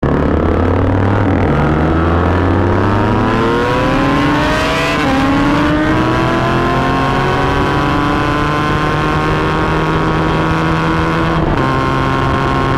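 Motorcycle engine heard from the rider's seat, accelerating with a steadily rising pitch, shifting up about five seconds in and again near the end, over a steady rush of wind noise.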